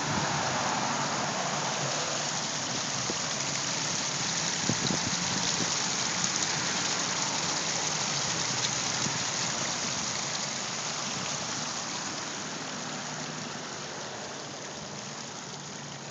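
Water from a large pondless waterfall pouring and splashing in a steady rush, growing quieter over the last few seconds.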